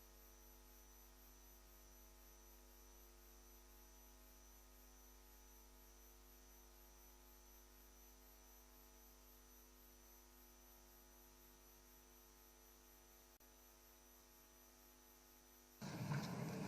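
Near silence with a faint, steady electrical hum. About a second before the end, louder room sound cuts back in.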